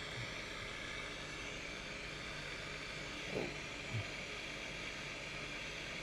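Jeweller's gas torch running with a steady hiss while it heats a silver ring to hard-solder a crown onto it. Two brief faint knocks a little past the middle.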